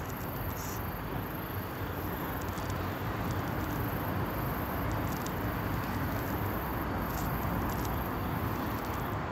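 Steady outdoor background noise: an even hiss with a low rumble and no distinct events.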